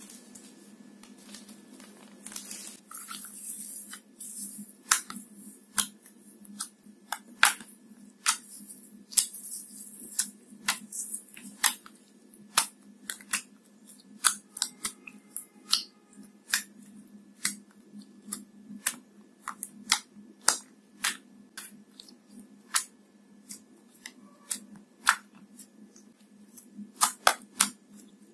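Clear slime being squeezed and kneaded by hand with gold leaf foil worked into it: a run of sharp sticky pops and clicks, about one or two a second. A fine crinkling hiss of the foil comes through in the first few seconds and again about nine seconds in.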